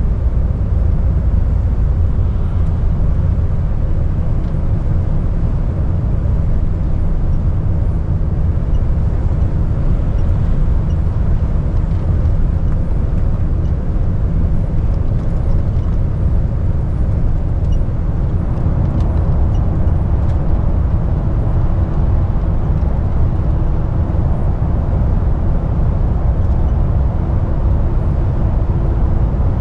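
Steady drone of a DAF lorry heard from inside the cab while cruising on the open road: deep engine and tyre rumble with no breaks.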